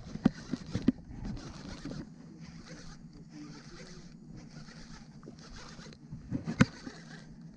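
Baitcasting reel cranked in a steady retrieve, reeling in a hooked snapper, with a low steady whir throughout. There are a few light clicks in the first second and one sharp click near the end.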